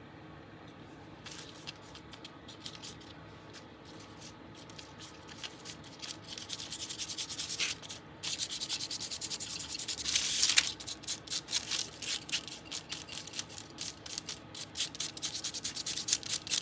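Hands rubbing back and forth over a translucent paper sheet pressed onto a crinkled, gesso-coated paper page: a papery scratching rustle in quick strokes. Faint at first, it grows busier about six seconds in and is loudest around ten seconds.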